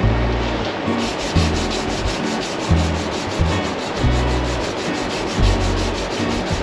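Background music with a steady beat: a repeating bass line and fast, even hi-hat-like ticks.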